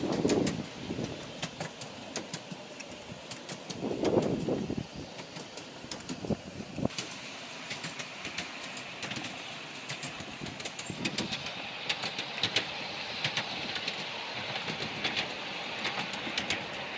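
Steam-hauled miniature railway train running along the track, heard from a riding car: a steady rumble with many sharp, irregular clicks of the wheels on the rails. Two louder rushes of noise come at the start and about four seconds in.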